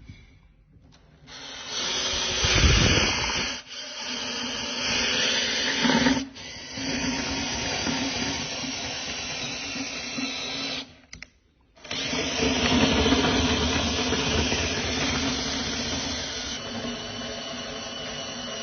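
A cordless screwdriver running in four long runs with short breaks between them, turning the router lift's drive to set the height of a Bosch POF 1400 ACE router through the router table.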